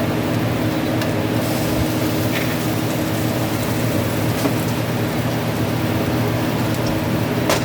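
Green peppers and mushrooms sizzling steadily in a frying pan on the stove, over a steady low hum.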